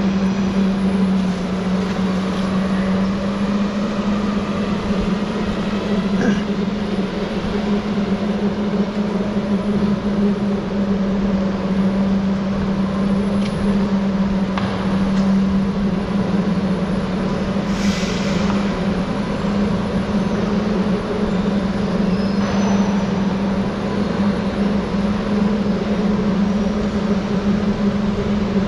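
Electric go-kart running: a steady low motor whine, holding nearly one pitch, over a rushing wind and tyre noise.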